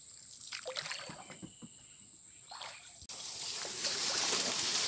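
Light splashes, sloshes and drips of water around a small wooden boat moving through swamp water. About three seconds in the sound breaks off briefly and gives way to a louder steady high hiss.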